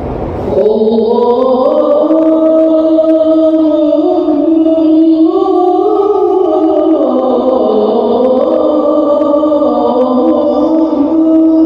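A chanted vocal line that starts about half a second in and holds long notes, gliding slowly up and down without pausing for breath.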